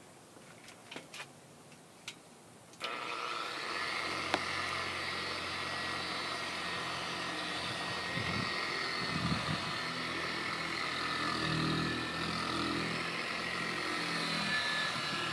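Handheld electric buffer starting up about three seconds in, then running steadily as its pad works buffing compound over an oxidized fiberglass boat hull to cut away the oxidation. A few light clicks come before it starts.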